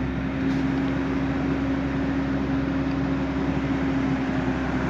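Steady machine hum with one constant low tone over an even background noise, unchanging throughout.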